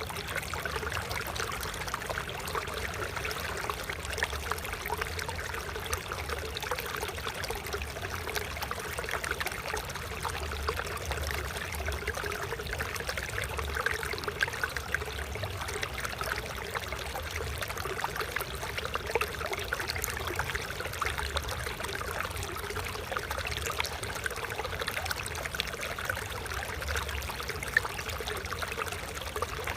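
Water flowing steadily in a stream, a continuous trickling and splashing rush, with a low rumble underneath.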